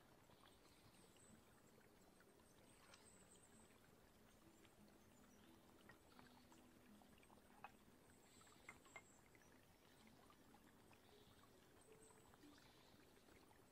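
Near silence: a faint, even hiss with a few soft clicks about eight and nine seconds in.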